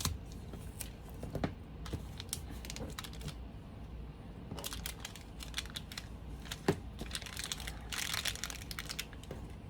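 Paper and card rustling and crinkling as they are handled and pressed, with scattered light taps and clicks; one sharper tap a little under seven seconds in and a longer crinkle just past eight seconds.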